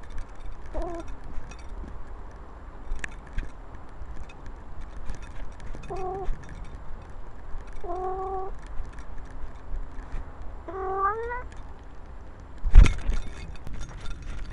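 Egyptian Mau cat meowing four times in short calls, the last one rising in pitch, picked up close by a camera on its own collar along with rustling and ticks. A loud thump comes near the end.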